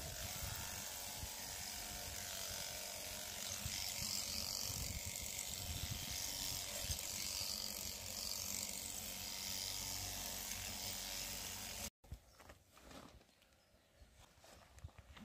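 Electric sheep-shearing clippers running steadily with a fast, rattling buzz as the fleece is cut from a Shetland sheep. After about twelve seconds the sound cuts off abruptly and gives way to much quieter background.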